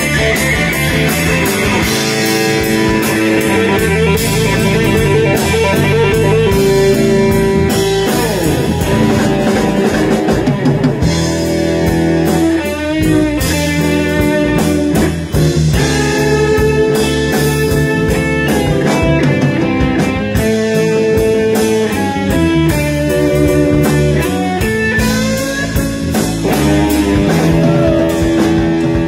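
Live blues-rock band playing: two electric guitars over a drum kit, with steady drum hits under the guitar lines.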